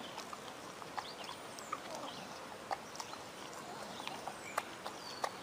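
Quiet outdoor background with scattered light clicks, roughly one a second, and a few faint high bird chirps.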